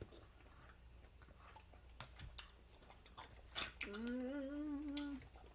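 Close-up eating sounds: chewing with small mouth clicks and crunches. About four seconds in comes a person's held, slightly wavering hum of a bit over a second.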